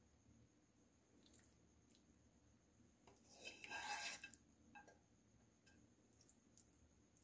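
Faint sounds of a spatula turning sauced penne pasta in a glass dish: one soft, squishy scrape about three and a half seconds in, followed by a few light taps.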